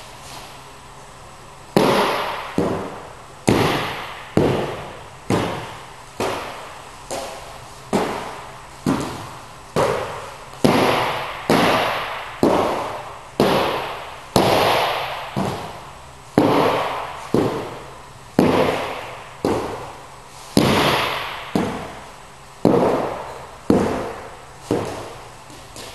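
Repeated thuds and knocks from a dumbbell floor exercise, about once a second, starting about two seconds in. Each one rings out in the echo of a large hall.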